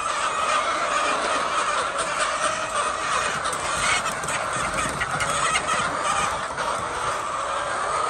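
A large flock of chickens clucking and calling together, a steady dense chorus, with scattered light clicks in the middle.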